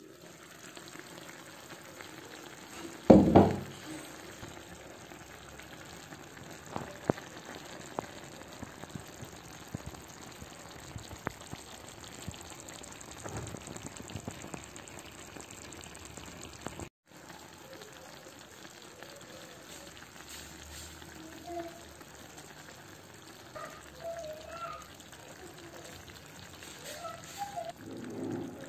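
Clay tagine of beef and vegetables simmering on low heat, sizzling and bubbling steadily, with one loud knock about three seconds in and a few lighter clicks.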